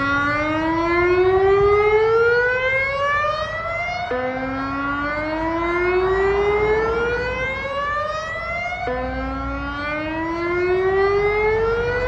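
Federal Signal Modulator 6024 electronic siren sounding its alert/warning tone. It is a loud rising sweep that climbs steadily for about four and a half seconds, snaps back down to the low pitch, and climbs again, a little over two cycles here.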